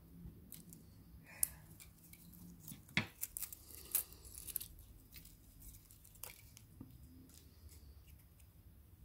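Faint scattered clicks, taps and rustling of a replacement Galaxy A8 LCD panel being handled and positioned over the phone's metal frame, with sharper clicks about one and a half, three and four seconds in.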